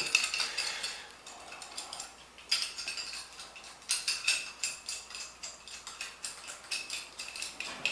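Metal spanner wrench clinking and scraping against the cross-threaded flush-valve nut under a toilet tank, in a run of sharp clicks with a lull about a second in. It is an attempt to grip and turn the nut.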